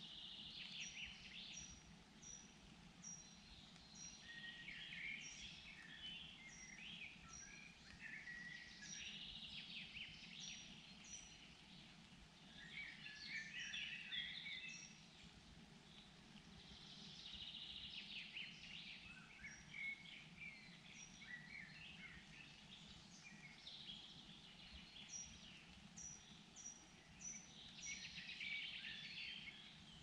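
Faint songs of several forest birds, warbling and chirping in overlapping phrases. A short high note repeats about twice a second in runs near the start and again near the end.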